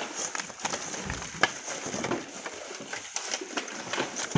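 Steel shovels scraping into and tossing coarse volcanic sand and gravel, and a hand tool scraping sand across a wire-mesh sieve on a wheelbarrow. The sound is an irregular run of crunches and scrapes, with a sharp click about a second and a half in and another near the end.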